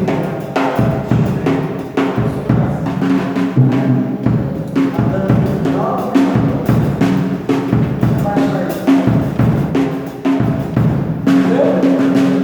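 Drum kit played with frequent, irregular hits on bass drum and snare, over sustained pitched notes from other instruments.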